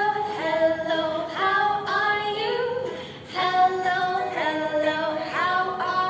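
A woman singing a children's hello song in a string of held notes.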